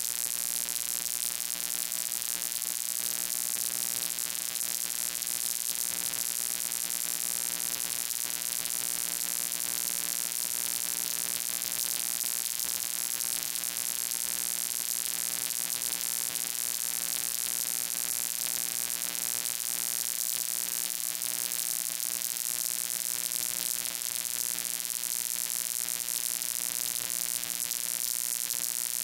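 Steady electrical hum and buzz, a constant set of evenly spaced tones over a loud hiss, unchanging throughout with no speech heard.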